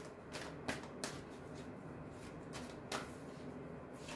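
Tarot deck being shuffled by hand: soft, irregular card slaps and flicks, the sharpest about three seconds in.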